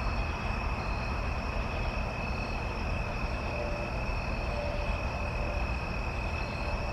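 Steady high-pitched trill of insects, likely crickets, over even low background noise.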